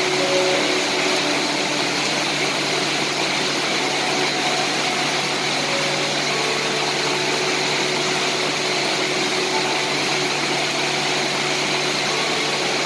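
Steady heavy rain, a continuous even hiss with no breaks.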